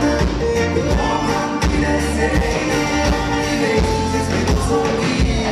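Live band music: a singer's voice over a horn section with trumpet, and a steady drum beat with heavy bass.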